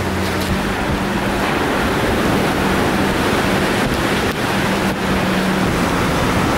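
Typhoon wind and torrential rain: a loud, steady rush of noise.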